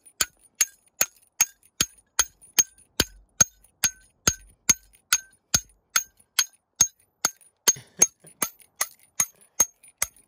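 Steel hammer striking a steel wedge (a bolt-removal tuning fork) driven under a hanger to work a split-shaft bolt out of granite. Steady, even blows, about two and a half a second, each with a short metallic ring.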